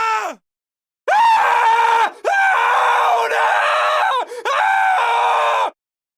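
A man screaming: a held scream cuts off just after the start, then after a second's pause come three long, loud, high-pitched screams in quick succession, broken by short gaps, ending shortly before the end.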